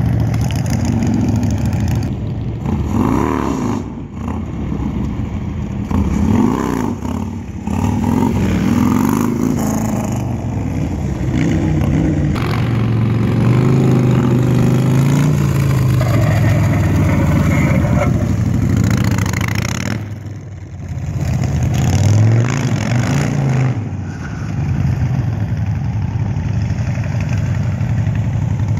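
Motorcycle engine revving up and down again and again under throttle, with a long steady pull around the middle and a brief drop in revs about twenty seconds in.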